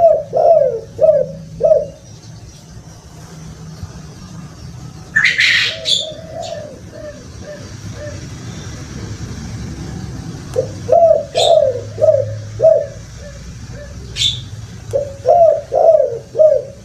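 Spotted dove cooing in phrases of several short, low notes, repeated four times, the kuk-kuk style of call used as a lure for captive doves. A brief hiss comes about five seconds in, and short high chirps from other small birds are scattered through.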